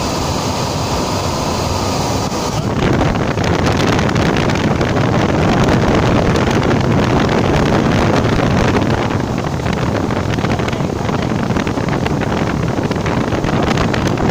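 Pet grooming blower running steadily, its air stream aimed close onto a dog's matted fur. About three seconds in it grows louder and rougher, with air rushing over the microphone.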